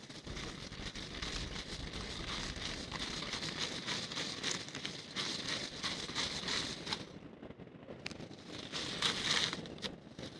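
Wind buffeting the microphone in an uneven rumble, with irregular crackling rustle over it.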